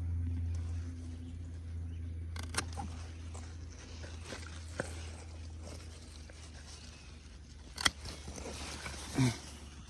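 Yellow crookneck squash plant being handled as squash are taken off: a few light clicks and rustles, then one sharp snap near the end, over a steady low hum.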